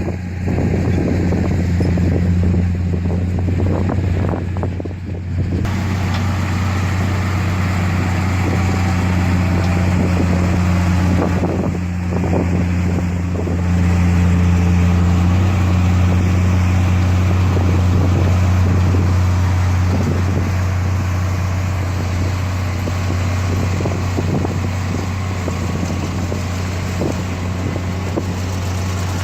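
Heavy diesel earthmoving machinery running under load: a steady low engine drone that grows a little louder about halfway through, with scattered knocks.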